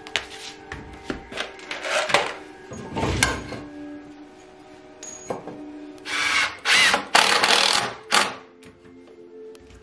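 Wooden 2x4 frame pieces knocked and shifted on a concrete floor, then a cordless drill run in several short bursts about six to eight seconds in, driving screws into the jig.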